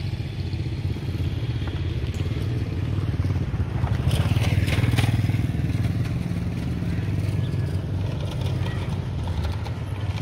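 Small engine running steadily with a low, fast-pulsing drone, and a short rush of noise swelling and fading about four seconds in.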